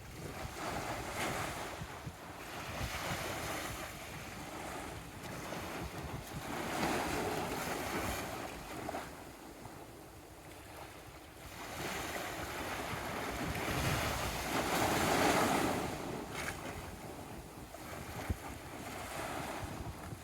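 Sea waves breaking and washing on the shore, the surf swelling and fading every few seconds, with wind buffeting the microphone.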